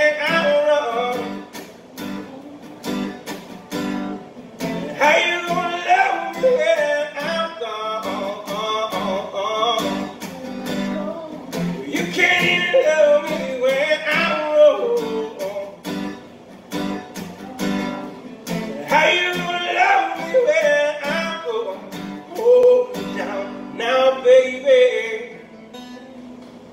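Acoustic guitar strummed steadily while a man sings along in phrases of a few seconds, with short gaps of guitar alone between them.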